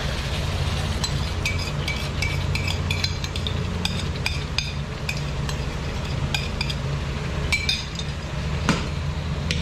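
A metal utensil clinking repeatedly against a ceramic bowl, two or three light ringing taps a second, as beaten egg is scraped out of the bowl into a wok. The taps stop near the end, and a steady low hum runs underneath.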